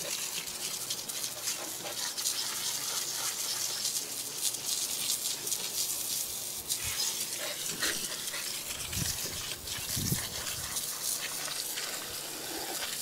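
Water jet from a hose spraying onto a motorcycle engine and splashing off its metal cases, a steady hiss of water. A couple of brief lower sounds come about 9 and 10 seconds in.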